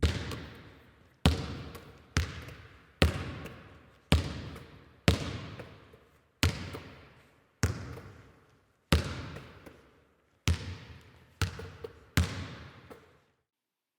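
A ball bouncing about a dozen times at roughly one bounce a second, each bounce ringing out and fading before the next.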